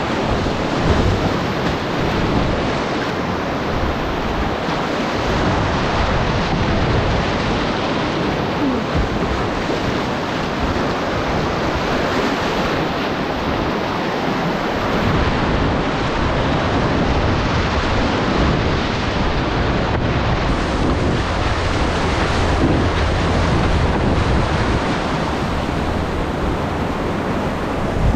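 Loud, steady rush of a class IV whitewater creek rapid heard from the cockpit of a kayak at water level, with an uneven low rumble underneath.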